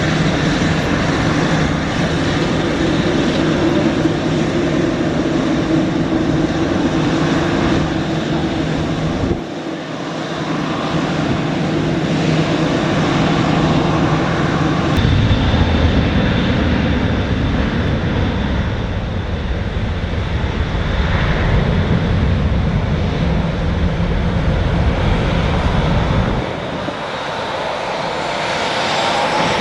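Airliner engines at an airport running loudly and steadily, in several recordings cut together, with sudden changes in the sound about a third of the way in, at the halfway mark and near the end.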